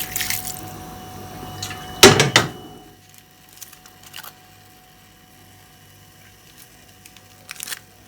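Water from a kitchen tap stops. About two seconds in there is a short, loud clatter of knocks, like a pot or utensils being handled, followed by a few light clicks and a brief clatter near the end.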